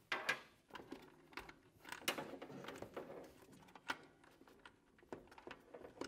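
Quiet handling sounds of a steam hose adapter and its steam hose being pressed onto the plastic steam cylinder of a heater-type steam humidifier: a few sharp clicks and knocks, the clearest about two and four seconds in, with light rubbing between.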